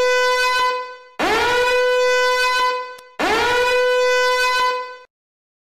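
Warning-alarm sound effect: loud horn-like blasts of one buzzy note, each about two seconds long, sliding up in pitch at the start and then holding steady. One blast ends about a second in, and two more follow with short gaps.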